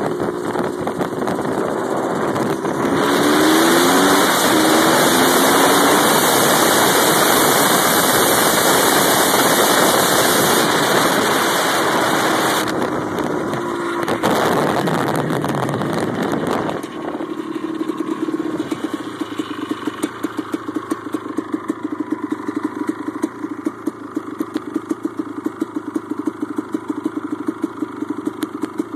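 ATK dirt bike's single-cylinder engine pulling away with its pitch rising, then buried under a loud rush of wind on the microphone while riding. About seventeen seconds in the noise drops away and the engine idles steadily with an even pulse.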